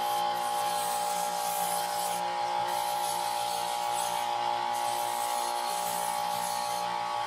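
Bench belt sander running steadily with a constant motor hum, while a small metal part is pressed to the belt to round its sharp corners; a gritty hiss of metal on the abrasive belt comes and goes as the part is worked.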